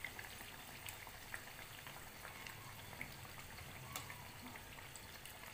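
Kachoris deep-frying in hot oil, nearly done and golden brown: a faint, steady sizzle and bubbling with scattered small crackles.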